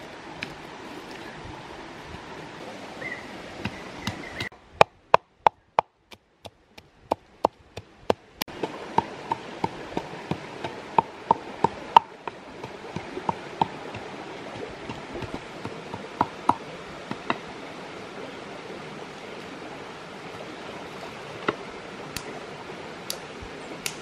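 Steady rush of a shallow stream, with a run of sharp knocks at about three a second, then slower scattered knocks, of food being chopped on a hard surface. The stream sound drops out for a few seconds during the fastest knocking.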